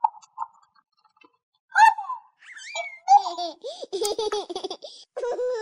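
A few short ticks, then from about two seconds in a toy's recorded baby giggling and babbling, set off as the toy stethoscope is pressed to the baby doll's chest.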